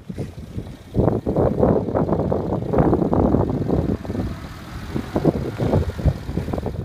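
Isuzu Rodeo driving over rough gravel, its engine running under uneven rumbling and knocking that turns loud about a second in and eases somewhat after about four seconds.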